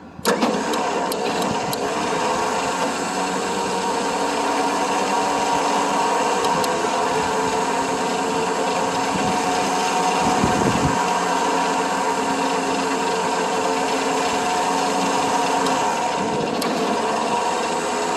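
Electric cable winch switched on and running steadily, its motor whining as it pulls a load up a trailer ramp that the load would not climb on its own. A dull low thump about ten seconds in.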